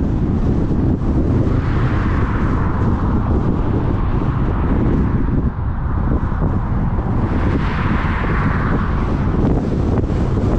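Wind buffeting the microphone of a camera travelling along a road, a heavy steady rumble with road noise underneath. Two broad rushing swells rise and fall, one around two seconds in and one around eight seconds in.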